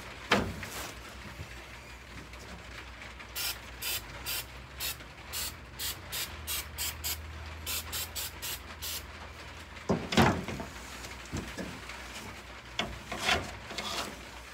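A hand trigger spray bottle squirts cleaner onto a chrome truck grille to degrease it: a quick run of about fifteen short hissing sprays, two to three a second. A louder knock of handling comes about ten seconds in.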